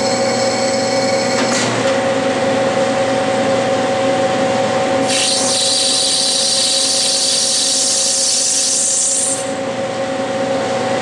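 Clausing metal lathe running steadily while its cutting tool takes a facing pass across a brass bearing flange. A click comes early, and the cut is heard as a bright hiss starting about five seconds in and stopping some four seconds later.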